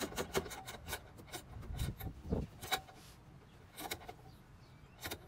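Long flex-head 13 mm wrench clicking and scraping as bolts on the rear intake-manifold brackets are tightened. A quick run of clicks comes in the first second, then a few single clicks and knocks.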